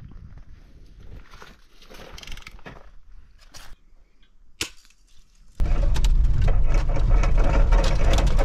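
A quiet stretch of faint rustling and scattered clicks, with one sharp click, then from about five and a half seconds the steady low rumble of a truck driving on a rough forest road.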